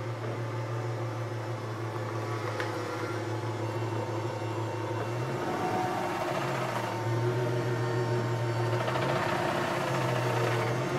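Ford Mustang's newly swapped engine running at a steady idle as the car rolls slowly backward, growing louder in the second half as it comes closer.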